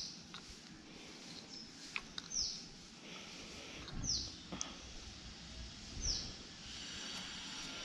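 A bird calling over and over, a short high note that slides downward, about every two seconds, with a few light clicks in between.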